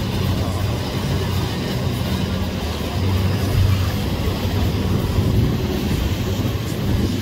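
Boat engine running steadily under way, a low even hum, with water rushing past the hull and wind buffeting the microphone.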